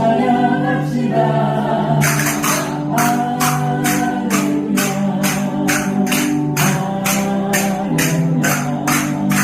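Spoons clacked together in a steady beat, about two to three strikes a second, starting about two seconds in, over a recorded praise song with choir singing.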